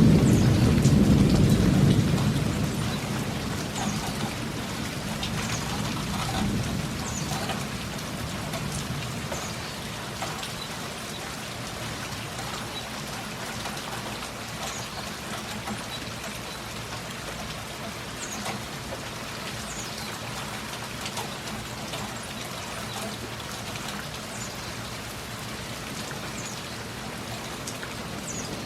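Thunder rumbling low and fading away over the first few seconds, then steady heavy rain falling, with scattered individual drops ticking.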